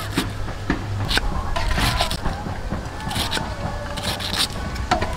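Kitchen knife slicing a banana stem thinly on a wooden chopping block: a run of short slicing strokes through the fibrous stem, with sharp knocks of the blade on the board.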